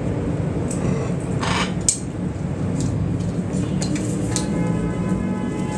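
Macaw calls over a steady city traffic rumble: a couple of short harsh squawks, then a longer, rougher call near the end.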